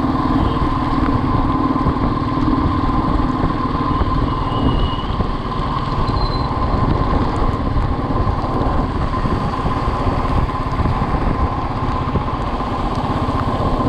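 Motorcycle running at riding speed, its engine heard under heavy wind and road noise, with a steady whine throughout and a lower hum that fades about four and a half seconds in.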